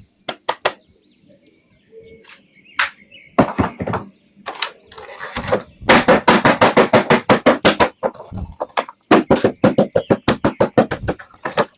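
Rapid runs of sharp clicks and crackles from handling an action-figure toy and its plastic packaging. They come in quick bursts of several a second, densest around the middle and again near the end.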